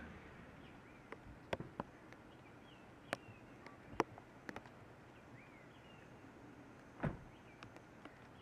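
Woodland ambience on a drizzly day: scattered sharp drops and taps over a faint hiss, with a heavier thump about seven seconds in. Short rising-and-falling bird chirps come now and then.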